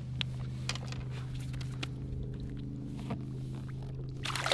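Steady low hum of a boat's motor running, with a few light knocks. Near the end a splash as a released striped bass kicks away in the water.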